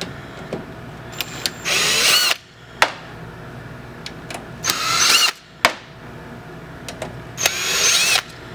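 Electric drill-driver backing out the screws that hold a PC power supply's cooling fan: three short runs of under a second each, each with a rising whine, with small clicks in between.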